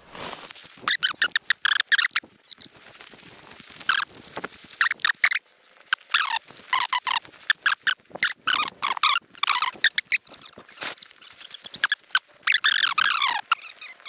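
Tall dry grass stalks brushing and scraping against the walker and the camera while pushing through a field: irregular rustling strokes, some squeaky.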